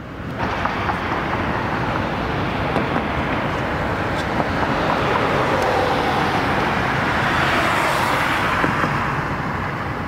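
Road traffic noise, cars going by on a busy street, swelling as one passes close about eight seconds in.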